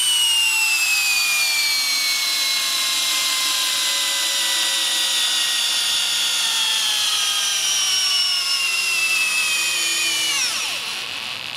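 Bosch GSB 18V-150 C brushless cordless combi drill in low gear, drill mode, driving a 12 mm by 300 mm stainless coach screw into timber. Its high motor whine sinks slowly in pitch as the load builds, then winds down sharply near the end as the drill stalls.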